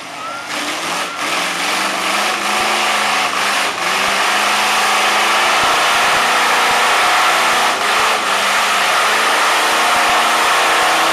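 Lifted Chevrolet pickup mud truck's engine running hard at high revs as it churns through a water-filled mud pit, its big tyres throwing mud and water. The sound swells over the first two seconds, then holds loud and steady, with a few sharp knocks.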